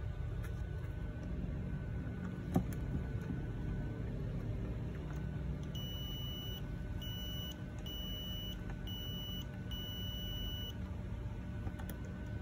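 Multimeter continuity buzzer giving five short, uneven beeps in quick succession as the test probes make and break contact on the router's circuit board, over a steady low hum. A single sharp click comes a couple of seconds before the beeps.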